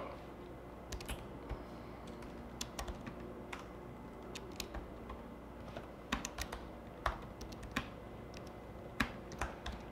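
Typing on a computer keyboard: faint, irregular key clicks in short runs with pauses between.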